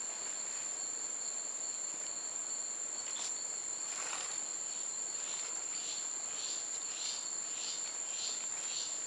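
Rainforest insects droning: a steady high-pitched tone with a fainter lower one beneath it. From about halfway through, a pulsing chirp repeats roughly twice a second. A couple of brief faint crackles come a few seconds in.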